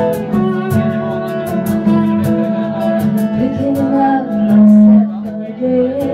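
Live acoustic guitar played with singing, as a song performed in a bar; a loud held note about four and a half seconds in.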